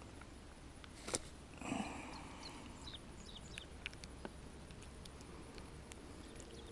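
Faint outdoor pond-bank ambience with scattered faint high chirps, a sharp click about a second in and a short rustle near two seconds from handling a freshly landed largemouth bass.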